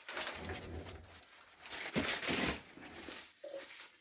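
Packing material crinkling and rustling in irregular bursts as it is pulled off golf clubs during unwrapping, loudest about two seconds in.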